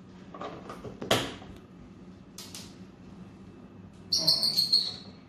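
The plastic lid of a small pet carrier being closed and pressed shut: a few clicks and knocks, then a shrill squeak lasting about a second near the end.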